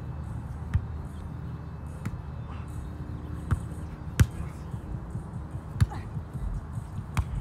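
Volleyball being struck by hands and forearms during a rally: a series of sharp smacks about a second or so apart, the loudest about four seconds in and again near six seconds.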